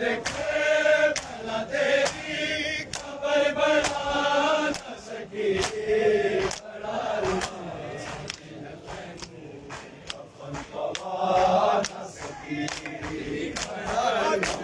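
A crowd of men chanting a noha in unison while beating their bare chests with open hands in matam, a steady rhythm of sharp slaps about twice a second. The chanting comes in phrases, strongest in the first few seconds and again about eleven seconds in.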